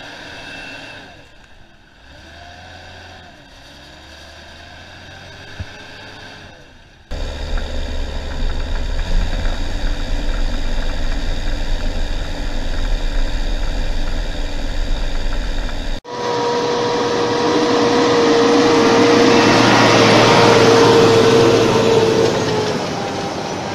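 Deutz-Fahr tractor engine working, its pitch rising and falling. About seven seconds in it changes abruptly to a much louder, deeper steady running, and about sixteen seconds in to a loud rushing noise with a steady whine.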